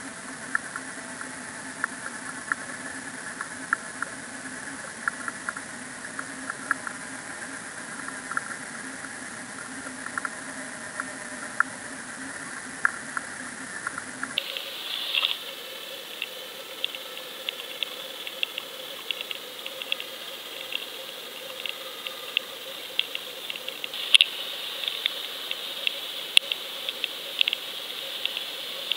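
Underwater audio from a camera housing: a steady hiss under a low hum, dotted with irregular sharp clicks. About halfway through it cuts to a thinner, higher-pitched hiss with a higher hum and more frequent clicks.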